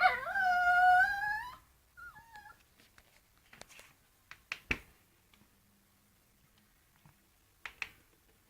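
Dog giving one long, high whine of about a second and a half, then a brief faint whimper. Scattered clicks and knocks follow, the loudest about five seconds in and a pair near the end.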